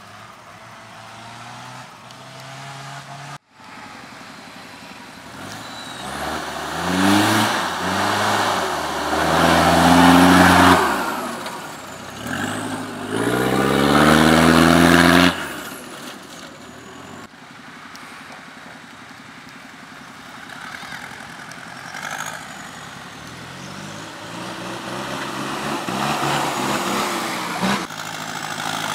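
A four-wheel-drive vehicle's engine accelerating hard twice, its pitch climbing through the gears, the second run ending abruptly about halfway through. Before and after, it runs at a lower, steadier pace.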